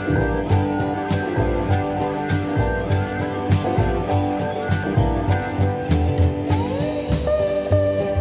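Background music: guitar over a steady drum beat, with a few sliding guitar notes near the end.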